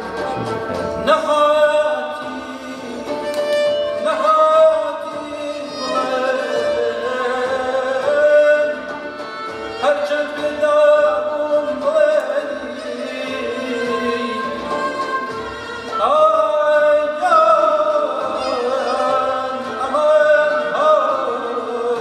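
Persian traditional ensemble music: a voice sings ornamented, wavering lines over plucked strings, with a fresh strike of the strings about a second in and again several times later.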